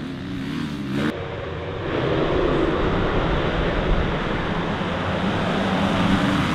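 Motocross bike engines running hard on the race track, their pitch wavering. The sound changes abruptly about a second in and then runs on steadily.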